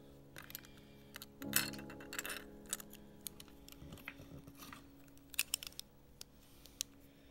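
Plastic LEGO bricks clicking and rattling as they are handled and pressed together: a string of sharp, irregular clicks, busiest near the end.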